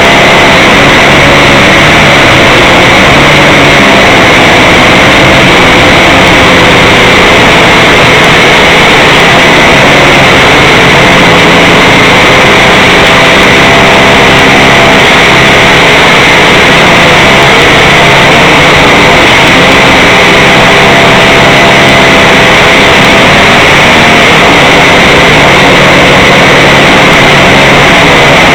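Small drone's electric motors and propellers buzzing steadily, picked up loud and distorted by its own onboard camera, the pitch wavering a little as it flies.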